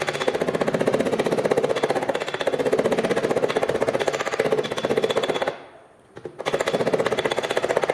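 Body-shop power tool working in rapid, evenly repeated strokes, like an air hammer. It stops about five and a half seconds in and starts again a second later.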